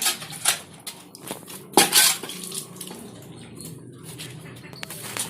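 Irregular clattering and clinking, like hard metal objects knocking together: a few sharp hits, the loudest cluster about two seconds in, over a low steady hum.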